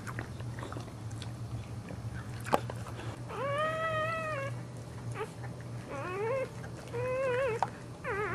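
A dog's high-pitched whining cries during whelping: one long cry about three seconds in, then three shorter wavering ones. A sharp click comes before the cries, over a steady low hum.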